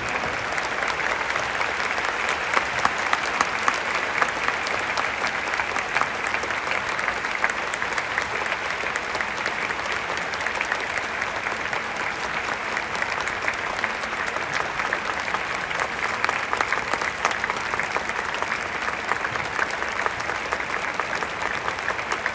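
A stadium crowd applauding: many people clapping steadily, without cheering or chanting.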